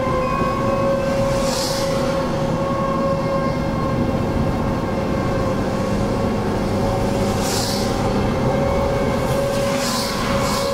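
Outdoor tornado warning siren sounding one steady, held tone, its upper overtones growing thinner in the middle and fuller again near the end. A low rumble lies beneath, with a few short hissing swells.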